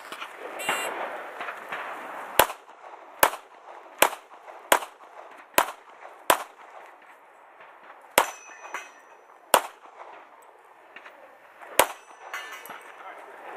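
Nine handgun shots: six about a second apart, then three more spaced further out. A short metallic ring follows some of the later shots, typical of steel plates being hit.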